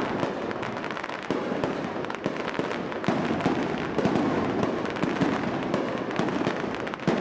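Fireworks crackling: a dense run of small pops and snaps over a low rumble.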